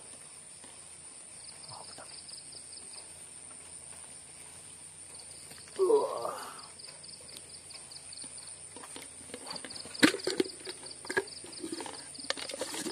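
Night insects: a steady high-pitched drone with repeated rapid chirping trills. About six seconds in comes one short, loud cry that rises and falls, and from about nine seconds on there are scattered knocks and rustling from handling.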